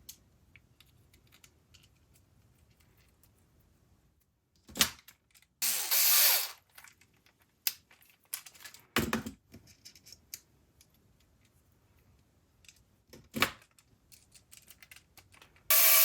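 Small electric screwdriver running in short bursts, driving M3 screws into 3D-printed plastic parts: one run of about a second partway through and another starting near the end, with clicks and a knock from the parts being handled in between.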